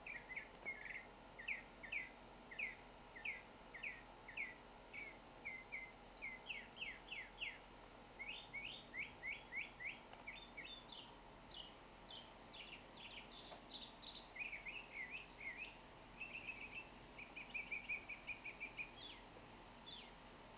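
Northern mockingbird singing: a steady run of short, sharp phrases, each repeated several times before the next begins, with a rapid even trill near the end.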